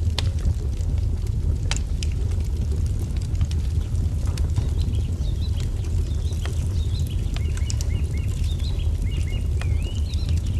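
Wood fire crackling, with scattered sharp pops over a steady low rumble. Small birds chirp in short, quick phrases through the second half.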